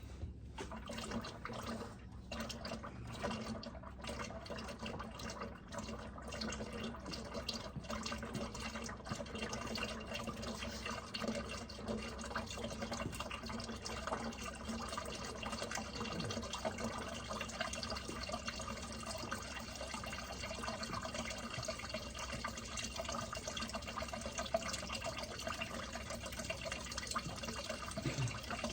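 Engine oil pouring in a steady stream out of the drain hole of a 2019 Can-Am Spyder F3 Limited, with scattered drip-like ticks over the first several seconds before the flow settles into an even trickle.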